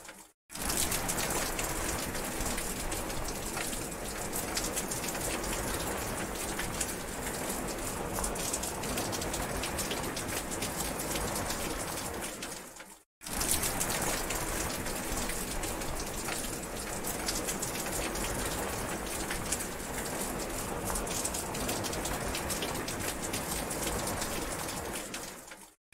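Steady rain falling, with many separate drop strikes on surfaces. The sound fades away to a brief silence about half a second in and again about halfway through, then starts up again at full level.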